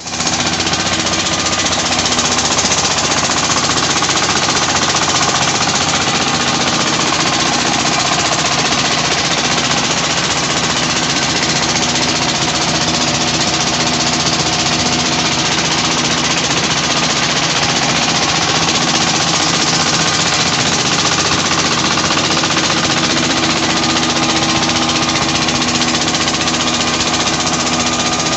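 Petter diesel engine of about 25 HP running steadily with a rapid knocking beat while belt-driving a chakki flour mill.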